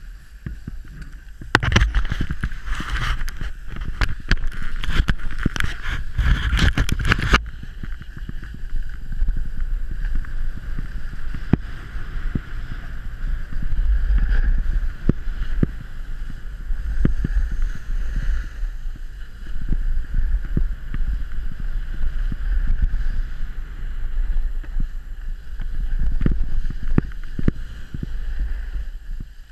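A snowboard sliding and scraping over packed snow, with wind rumbling on the action camera's microphone. From about a second and a half in, the scraping turns harsher and louder with many small clicks for about six seconds, then settles back to a steadier hiss.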